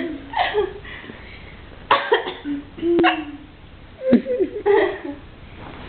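A person hiccuping several times, each hiccup a short, sudden vocal catch, a second or so apart.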